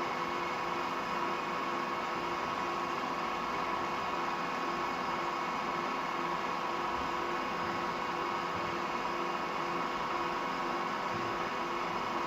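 Donau DR32 radial drilling machine running with no load, its spindle drive giving a steady hum and gear whine.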